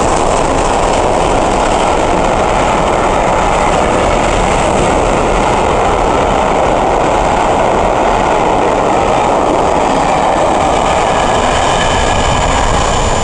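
Steady loud rushing noise of a steam-hauled passenger train running through the station and drawing away. A few faint high whistling tones come in near the end.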